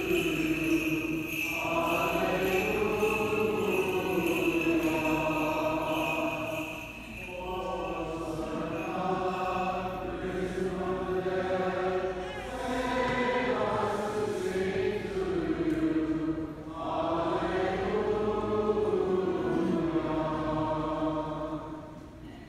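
Voices singing Byzantine liturgical chant in long, sustained phrases, with short breaths between them, tapering off near the end.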